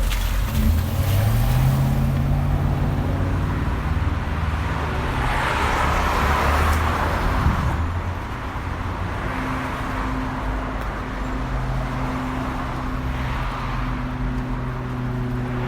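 Suburban street traffic. A car engine rises in pitch as it pulls away near the start, then a car passes by with a swelling rush of tyre noise around the middle. A steady engine hum runs through the second half.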